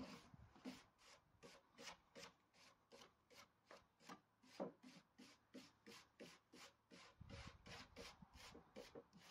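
Faint, even back-and-forth scrubbing strokes of a hand-held abrasive tool worked over a workpiece, about three strokes a second.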